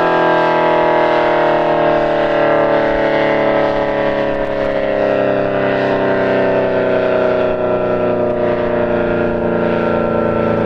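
ACA Allertor 125 outdoor warning siren sounding loudly, a chord of several tones whose pitch slides slowly lower while its level holds steady.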